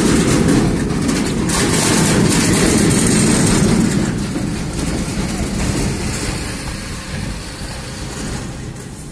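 Rushing wind and road noise inside a Maruti Suzuki Ertiga driving over a bridge, loudest in the first few seconds and easing off toward the end.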